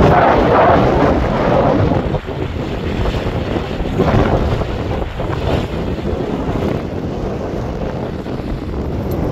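Wind buffeting the microphone: a loud, rough, steady rushing, strongest in the first two seconds and easing a little after that.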